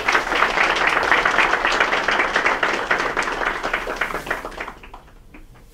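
Audience applauding, a dense patter of many hands clapping that dies away about four to five seconds in.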